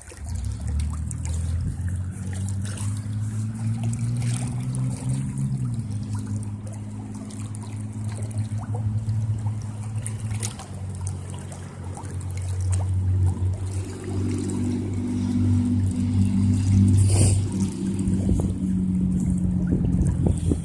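Steady low engine drone, its pitch shifting slightly about five seconds in, over creek water trickling.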